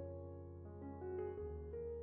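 Gentle background piano music, notes changing over a held low bass.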